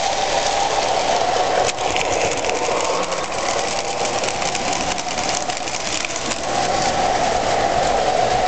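Lionel O-gauge model diesel train running past close by on Super O track: a steady hum of the motor and rumble of the wheels, with rapid small clicks and a sharper click about two seconds in.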